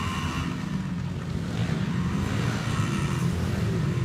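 Small dirt bike engines running on an indoor motocross track, a steady engine drone that grows a little louder toward the end as a bike comes closer.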